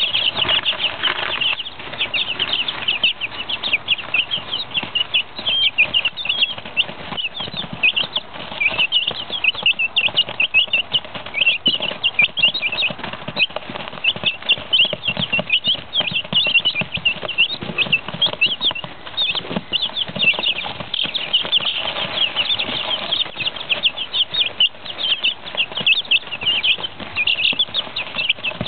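A brood of one-week-old Jersey Giant chicks peeping without pause, many short high cheeps overlapping one another.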